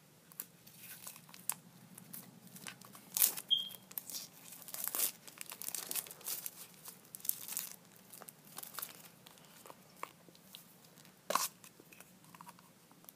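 Plastic toy packaging crinkled and torn open by hand, with irregular crackling and sharp plastic clicks as a blind-box canister is handled and its lid pried off. The loudest snaps come about three, five and eleven seconds in.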